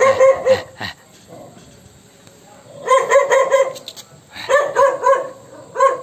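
A dog barking in quick runs of several barks: a run at the start, another about three seconds in, a third shortly after, and one more bark near the end.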